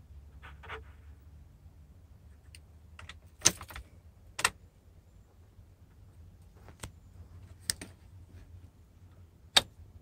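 Keys jingling and about half a dozen sharp clicks as the ignition key is handled and turned in a 2003 Chevy Suburban's ignition switch. No starter cranking or engine follows: the no-crank fault.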